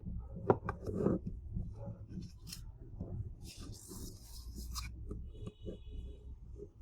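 Hands handling the small plastic and metal parts of a power bank being taken apart: sharp clicks and taps in the first second or so, then a rubbing scrape lasting about a second and a half.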